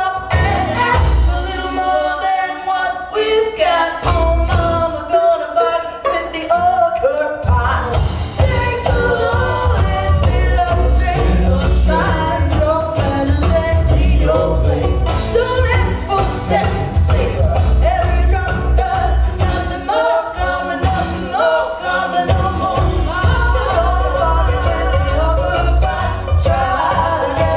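Live folk-roots band playing a song: a woman sings lead with harmony vocals over fiddle, banjo, acoustic guitar and drums. The low drums drop out for a few seconds near the start, then the full band comes back in.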